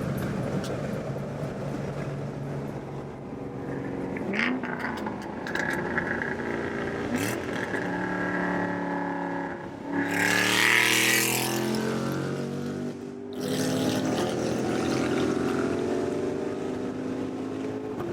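Exhaust of a Ford Shelby GT500's supercharged V8, running with its catalytic converters removed, as the car drives and accelerates. The engine pitch climbs and drops several times, and there is a rush of noise about ten seconds in.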